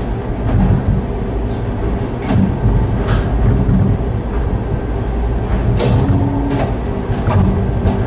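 Gateway Arch tram capsule riding up inside the arch, heard from inside the car: a steady low rumble and hum, with irregular sharp metallic clicks and clanks every second or so.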